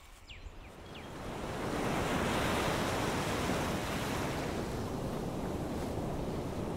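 Ocean surf washing onto a beach. It swells up over the first two seconds and then holds steady.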